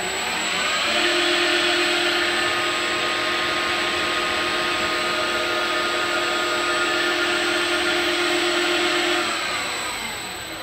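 CNC spindle motor driven by a VFD speeding up over about a second, then running at a steady speed with a steady whine, and slowing down near the end.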